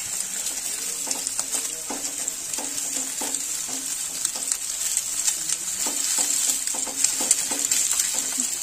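Eggs frying in hot oil in a nonstick pan, sizzling steadily, while a spatula stirs and breaks them up with short, irregular scraping strokes against the pan.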